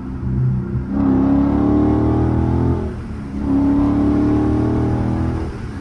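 Dodge Charger Scat Pack's 392 (6.4-litre HEMI V8) engine under hard acceleration, heard from inside the cabin. The engine note climbs in pitch, drops as the transmission upshifts about three seconds in, climbs again, and drops at the next upshift near the end.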